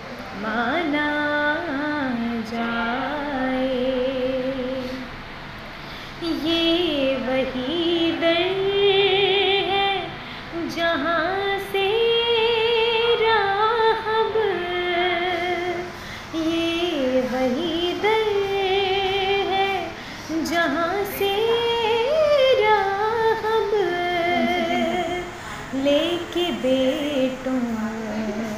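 A woman singing a devotional kalam solo and unaccompanied, in long phrases of wavering, ornamented notes with short breaks between lines.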